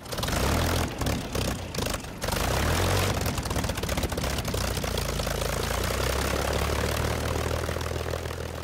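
Propeller aircraft's piston engine coughing unevenly as it starts, then catching and running with a steady low drone that eases off near the end.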